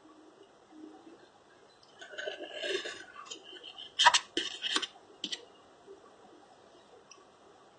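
Small handling noises of a phone and repair tools on a bench: a short rubbing scrape about two seconds in, then a quick cluster of sharp clicks and taps about four seconds in.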